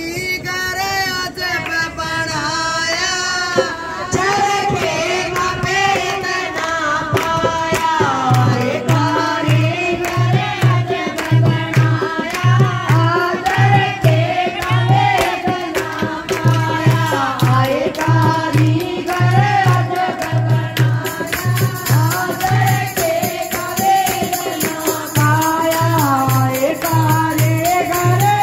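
Women singing a Haryanvi devotional bhajan, a wavering sung melody over sharp rhythmic percussion, with a steady low drum beat that comes in about eight seconds in.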